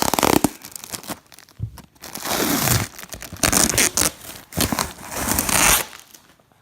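Packaging on a new rolled rug crinkling and tearing as it is pulled open by hand, in several rustling bursts.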